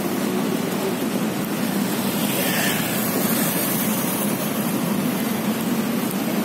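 Busy city road traffic: motorcycles and cars running past close by, a steady engine hum under a constant rush of noise, with one vehicle passing louder about two and a half seconds in.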